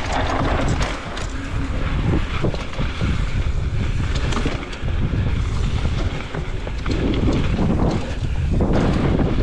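Wind buffeting the microphone on a mountain bike descending fast on dry dirt singletrack, with tyre noise and frequent short rattles and knocks from the bike over rough ground.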